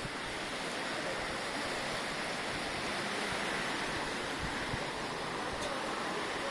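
Floodwater rushing over a road in a strong current: a steady rushing noise.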